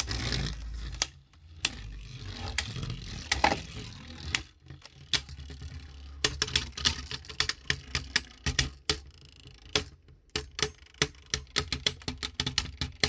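Two Beyblade Burst spinning tops, one of them a light-up Fire Rip Fornious, knocking and grinding against each other in a plastic stadium: an irregular run of sharp plastic clicks and clacks over a low hum, the clicks coming faster from about halfway on.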